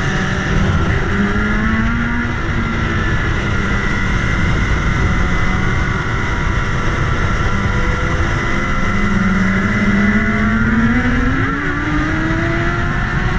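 BMW S1000 sportbike's inline-four engine pulling along a road under heavy wind rush, heard from the rider's own bike. The engine note climbs steadily near the end as the bike accelerates.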